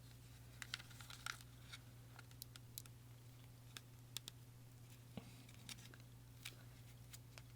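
Near silence with faint, scattered clicks and taps of hard plastic toy pieces being handled and pushed together, over a low steady hum.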